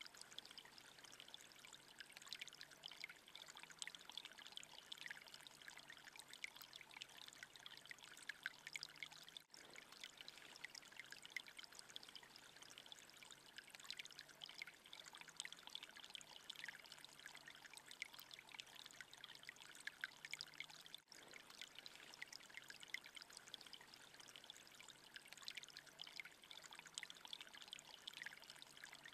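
Faint, steady trickle of thin water streams running and dripping off moss, a light splashing patter that briefly drops out twice.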